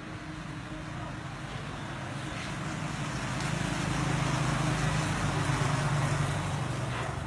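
A motor vehicle passing on the road, its engine hum and tyre noise swelling to a peak about four to six seconds in, then fading.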